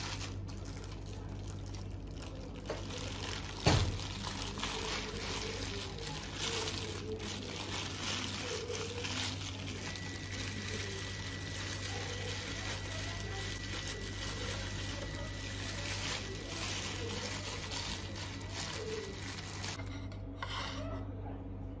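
Plastic bag crinkling and rustling as a soft food is squeezed out of it into a blender jug, with one sharp knock about four seconds in.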